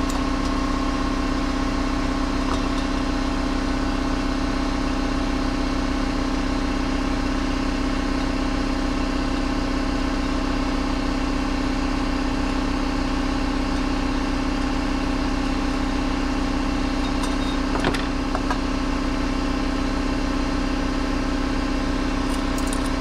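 Air compressor running with a steady, unbroken drone. A single brief click sounds about 18 seconds in.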